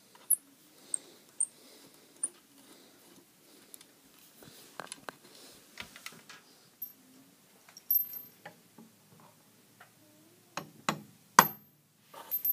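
Handling of a wooden boat cabin ladder and its parts: a few sharp high clicks at first, then scattered light taps and clicks of wood and small metal fittings, with several sharper knocks near the end.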